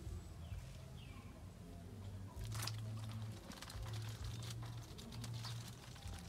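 Faint outdoor ambience at a weedy lake edge. A couple of short high bird chirps come in the first second. From about two and a half seconds in, a low hum comes in long stretches with a scatter of small clicks and pattering.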